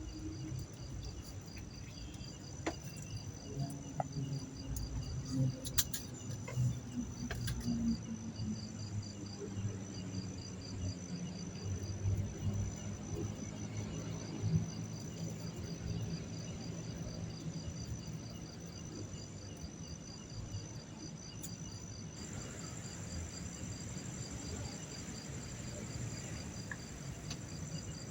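Crickets chirping steadily in a fast pulsing trill, with a second, higher insect trill joining about two-thirds of the way through. A low rumble and a few faint clicks lie underneath.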